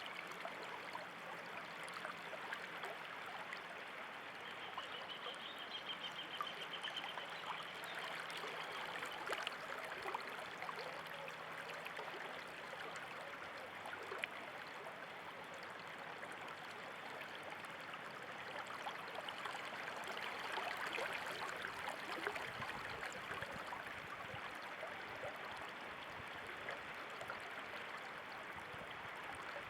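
Water flowing and trickling in a small stream, a steady rushing. About five seconds in, a brief high trill sounds over it for a few seconds.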